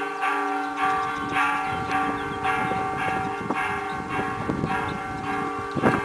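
Church bells ringing a steady, fast peal, a new stroke about every half second over the ringing tones. A low rumble runs underneath from about a second in, and there is one sharp thump near the end.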